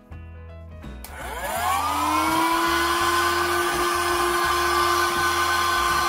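A Philips 4.8 V cordless handheld vacuum cleaner switched on about a second in: its motor whine rises as it spins up, then runs steadily with a hiss of air. It is sucking dust from the fins of a fridge's heatsink.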